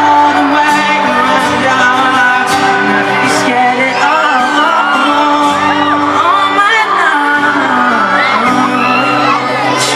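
Live concert recording of a pop ballad: the band plays sustained notes with singing, while many high, wavering screams from the audience ride over the music.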